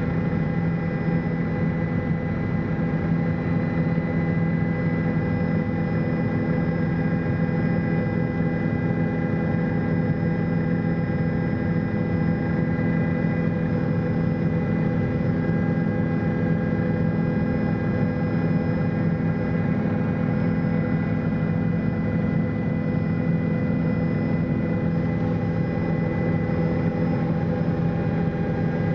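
Helicopter cabin noise in flight: a steady drone of engine and rotors with a thin high whine above it, heard from inside the cabin.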